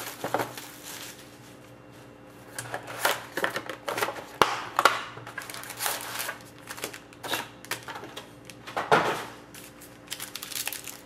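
Plastic shrink-wrap, cardboard and foil card packs of a Panini Certified hockey box rustling and crinkling as they are handled, in irregular crackles, with one sharp click about four seconds in.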